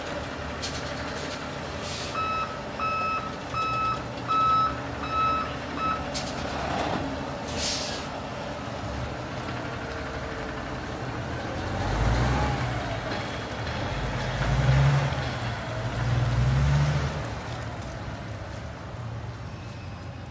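A backup alarm beeps six times, about 0.7 s apart. Then an air-brake hiss sounds twice, and the semi-truck's diesel engine revs up and runs louder for a few seconds as the truck pulls away.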